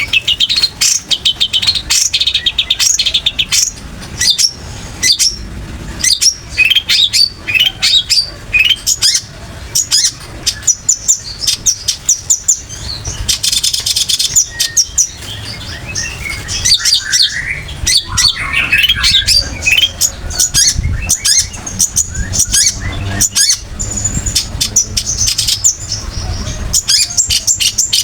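Long-tailed shrike (cendet) singing a loud, fast, varied song of sharp chirps and short trills. There is a harsher, scratchy stretch about halfway through.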